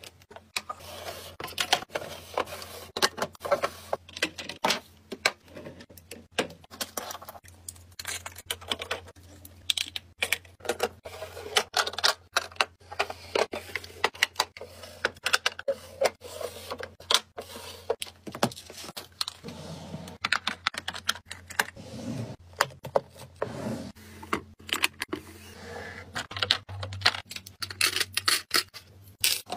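Long acrylic nails tapping and clicking on plastic makeup packaging and clear acrylic storage drawers, with small plastic items clinking as they are handled: a dense, irregular run of sharp clicks.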